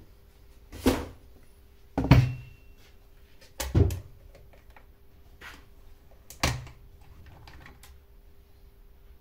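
Scheppach CSP41 chainsaw being handled and turned over: four clunks and knocks of its plastic housing against a surface, with lighter clicks in between.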